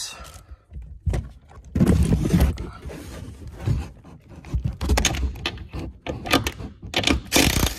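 Cordless DeWalt 20V power driver with a socket on an extension running in several short bursts to back out bolts at the rear shock tower, with knocks and rattles of the tool and socket between the bursts.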